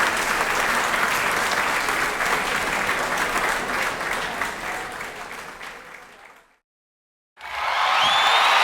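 Audience applause, many hands clapping, fading out over about two seconds into silence. After a brief gap a new round of applause starts abruptly near the end.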